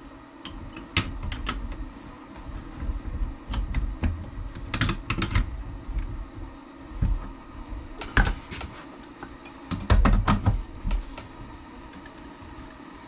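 Irregular metal clicks and knocks of tools and a seized differential part clamped between wood blocks in a bench vise, as a wrench is fitted and strained against it. The loudest knocks come about eight and ten seconds in. The threaded piece is held fast by thread-locking agent and does not break free.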